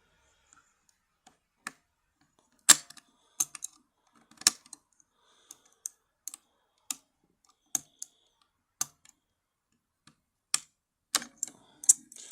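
Sharp, irregular metallic clicks of a lock pick and turning tool working the pins inside an ERA Fortress lock cylinder while it is being picked. There is about one click a second, with a quicker cluster near the end.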